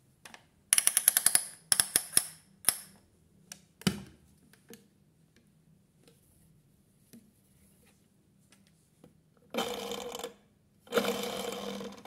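Clicks and a knock from a front-loading washing machine's door and drum being handled: a fast run of sharp clicks about a second in, a few single clicks, a knock, then two short rasping noises near the end.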